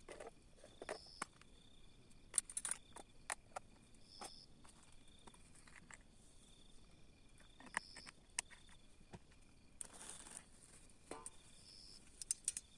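Faint clicks, crinkles and light knocks of hands handling plastic bags, a plastic bottle and a metal pan, with the sharpest clicks a few seconds in and just before the end. Insects chirp steadily behind, with a short high buzz every couple of seconds.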